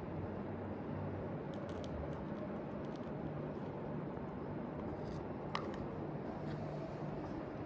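Steady background room noise with a faint low hum, and a few light clicks from handling, one sharper about five and a half seconds in.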